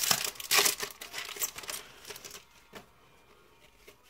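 Foil wrapper of a trading-card booster pack crinkling as it is torn open by hand. The crackling is dense for the first two seconds or so, then thins to a few light rustles as the cards come out.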